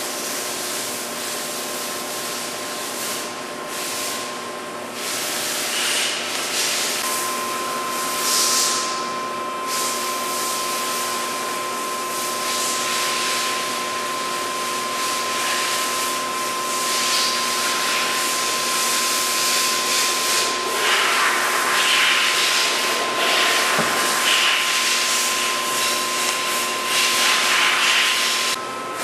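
Summit 36DC heavy-duty engine lathe running under power: a steady mechanical hiss with a constant high whine. The rushing noise grows louder about three-quarters of the way through.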